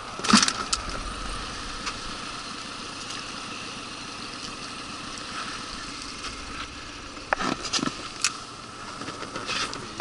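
Suzuki outboard motor idling steadily. A loud knock comes just after the start, and a few more sharp knocks follow near the end.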